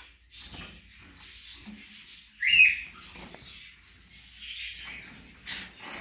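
Small cage finches chirping: three short, sharp, high-pitched chirps spread through, and a lower squeaky call about two and a half seconds in.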